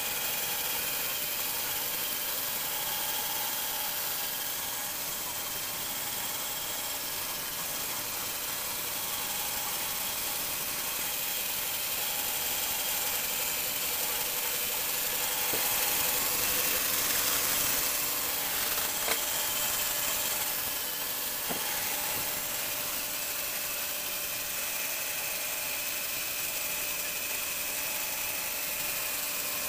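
Lego Mindstorms NXT motors turning two plastic-geared Lego Technic turntables, a steady mechanical whirr of motor and gear train, heard at double speed, with a short click or two about two-thirds of the way through.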